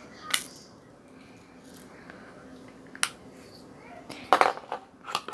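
Small plastic beads and their container clicking as they are handled: two single sharp clicks, then a short burst of rattling near the end as the beads are tipped out.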